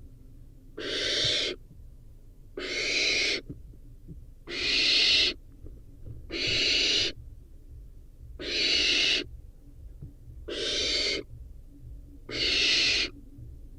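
Barn owl nestling giving its hissing, snore-like begging call over and over: seven breathy bursts, each under a second long, about every two seconds.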